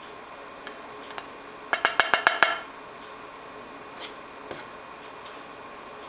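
A utensil clinking against a dish about seven times in quick succession, each clink ringing briefly, with a few faint clicks before and after.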